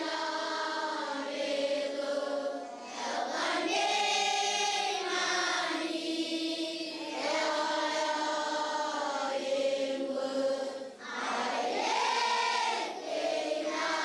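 A large group of children and adults singing together, long held notes with short breaks between phrases.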